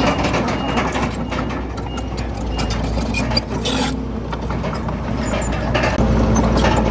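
Crawler bulldozer's diesel engine running under load, with the steel tracks and blade clanking and rattling over rock and soil.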